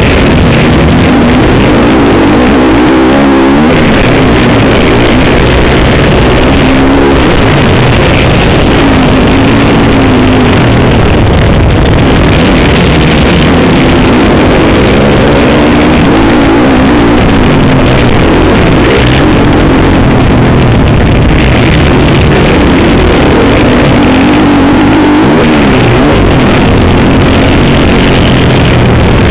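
Motocross bike engine heard from an on-board microphone, its pitch rising and falling over and over as the rider opens and closes the throttle and shifts through corners and straights, with rushing wind. The recording is overloaded and distorted throughout.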